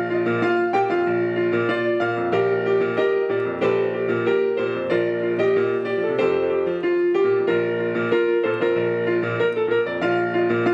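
Piano playing a hymn tune, with notes struck in an even rhythm.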